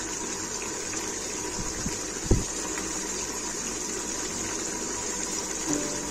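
Steady hiss of the gas burner under an open aluminium pressure cooker. About two seconds in, a wooden spatula knocks once against the pot. Music comes in near the end.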